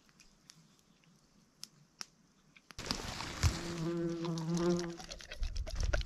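A few faint ticks, then from about three seconds in a louder outdoor background with a fly buzzing close by for about a second. A low rumble builds near the end.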